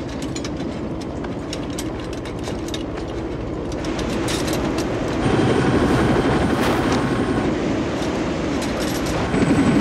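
Military helicopter cabin noise with the rear ramp open: a steady engine and rotor drone with a rattling edge, growing louder about five seconds in.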